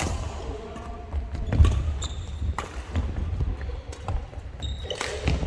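Badminton rally: sharp racket hits on the shuttlecock repeating every half second to a second, with brief shoe squeaks and footfalls on the court floor.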